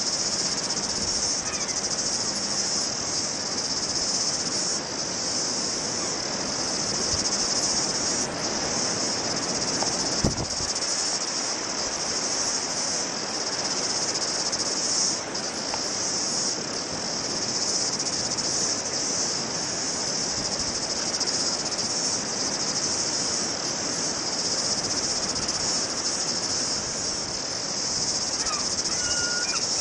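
Steady high-pitched chorus of cicadas, over a rushing noise. There is a single knock about ten seconds in and a short bird chirp near the end.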